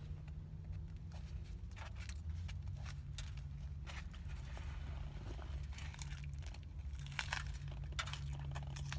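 Crinkling and soft crackles as a cheeseburger in a bun is handled and turned in the hands, with a bite into it near the end. Under it runs a steady low hum in the car cabin.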